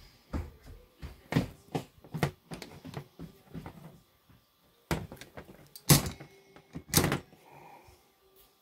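A series of irregular knocks and clunks from hard objects being handled, the loudest three at about five, six and seven seconds in.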